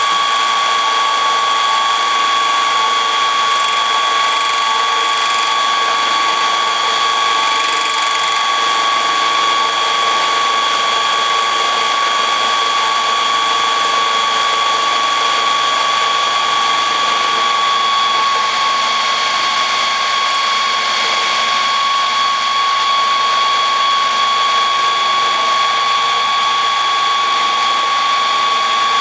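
Bench mill with a three-phase motor on a variable frequency drive, running steadily with a constant whine while its end mill takes a pass widening the slot in a steel quick-change tool post adapter.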